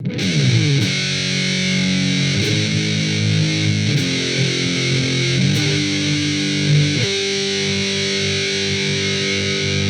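Intro music: a distorted electric guitar playing held chords that change about every one and a half seconds.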